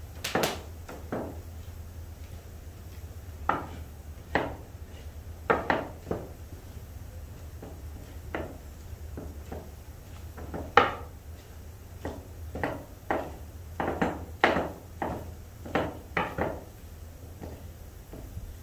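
Heavy wooden pestle mashing boiled carrots in an earthenware bowl: irregular knocks of wood on the soft carrots and the bowl, coming quicker about two-thirds of the way through.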